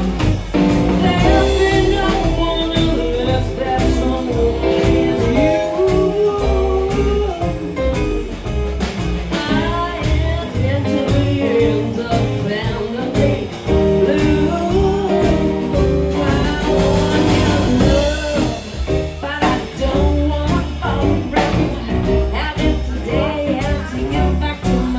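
A jazz combo of guitar, piano, bass and drums playing a swinging instrumental passage, with pitched melody lines over a steady beat.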